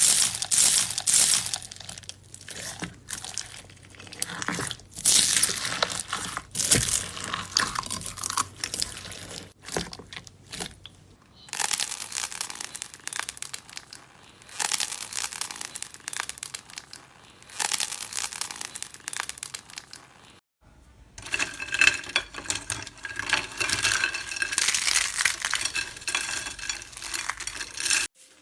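Slime being squeezed and pulled by hand close to the microphone, a dense sticky crackling and popping. It comes in three separate stretches, with abrupt cuts about a third and two-thirds of the way through.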